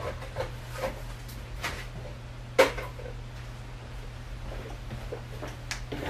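A few light knocks and clicks of things being handled and set down on a workbench, the clearest about two and a half seconds in, over a low steady hum.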